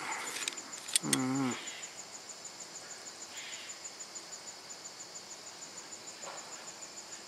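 Crickets chirping steadily in the background, a high, rapid, even pulsing. A man's short voiced murmur about a second in.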